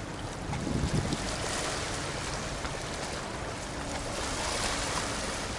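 Small waves washing and lapping against the stones at the water's edge, swelling and easing a couple of times, with wind rumbling on the microphone.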